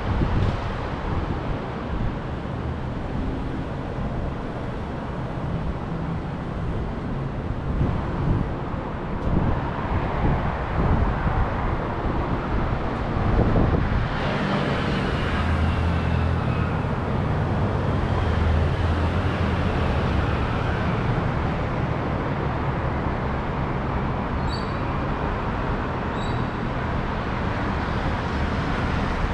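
City street traffic with vehicles passing; a deeper engine rumble sets in about halfway through. Two short high beeps sound near the end.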